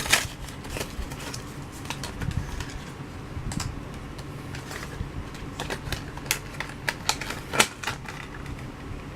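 Carded diecast toy car in plastic blister packaging being handled, giving a scattered string of sharp plastic clicks and taps, with the loudest snap near the end.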